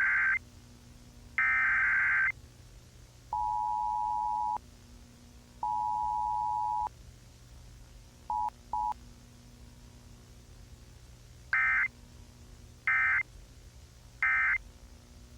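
Emergency Alert System tones: two harsh digital data bursts of the coded header, then the two-note attention signal sounded as two beeps of about a second each and two quick blips, then three short data bursts near the end, the end-of-message code. A faint low hum lies underneath.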